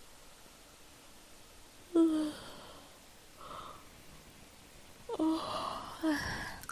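A woman yawning close to the microphone. There is a short voiced sound about two seconds in and a breathy exhale, then a longer, drawn-out voiced yawn near the end.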